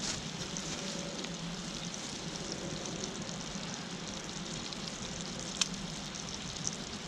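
Pigs in blankets frying in a pan: a steady sizzle, with one sharp click a little past halfway through.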